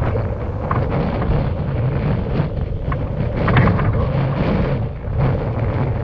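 Wind buffeting the camera's microphone: a loud, rumbling roar that rises and falls in gusts.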